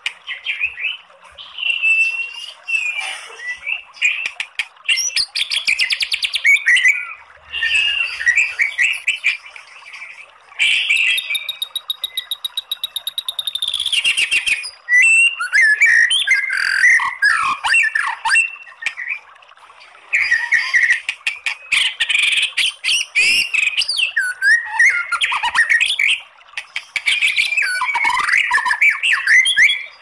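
White-rumped shama (murai batu) song in the 'kretekan' style: loud whistled phrases and glides mixed with fast crackling rattles, delivered in bursts with short pauses, with a long, fast, even rattle near the middle.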